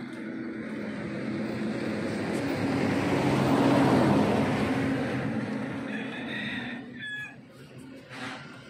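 An engine passes by, growing louder to a peak about four seconds in and then fading away. A rooster crows briefly near the end.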